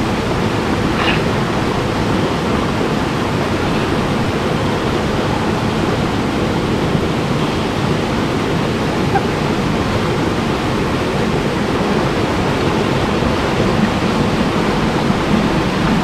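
Small mountain-beck waterfall pouring into a rock pool: a steady, even rush of falling water.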